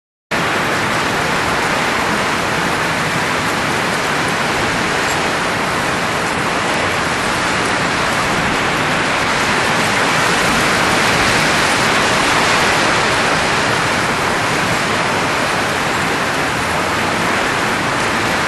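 Steady rushing hiss of blowing air, starting abruptly just after the start and holding an even level throughout.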